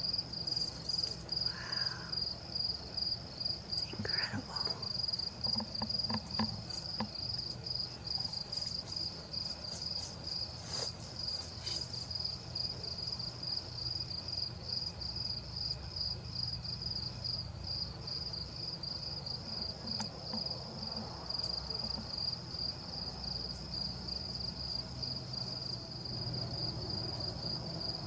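Steady high-pitched trill of a night-singing insect, pulsing rapidly and evenly, over a low background hum, with a few faint clicks in the first half.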